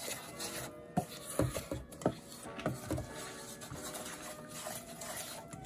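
Wooden spoon stirring a gritty mix of sugar, spices and coconut milk in a stainless steel bowl, scraping and knocking against the bowl several times.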